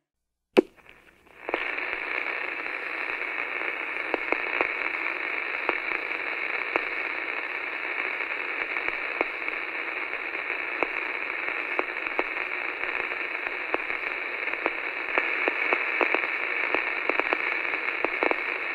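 A single sharp click, then a steady, thin radio-style static hiss with scattered crackles.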